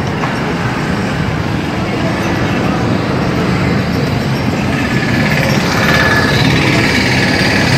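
Street noise: motor vehicle traffic running steadily, getting a little louder in the second half, with indistinct voices of people around.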